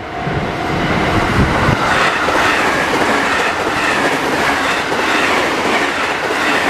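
A train passes close by over a level crossing at speed, its wheels clattering over the rail joints in a steady, loud rush of noise. The level-crossing warning bell rings in the first second before the train's noise covers it.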